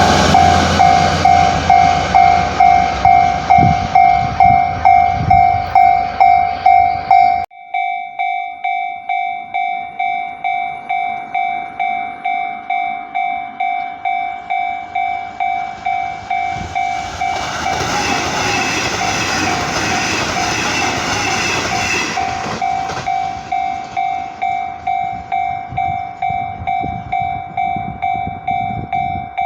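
A Japanese level crossing's warning bell rings steadily at about one and a half strokes a second while trains pass. The noise of a passing train cuts off abruptly about seven seconds in, and another train passes between about seventeen and twenty-two seconds in.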